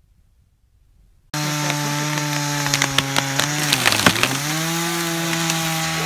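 Chainsaw cutting into a tree: the engine cuts in suddenly about a second in at a steady high speed, its pitch sags briefly as it bogs down under load in the cut about halfway through, then picks back up. Sharp cracks and snaps of wood sound over it throughout.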